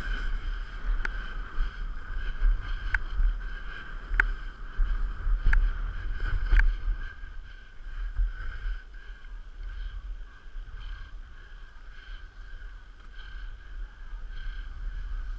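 Wind on a chest- or head-mounted GoPro HERO3 in its housing and skis or board sliding fast over packed snow, heard as a rough rumbling rush with a faint steady high whine. About five sharp knocks come in the first seven seconds, then the run goes quieter.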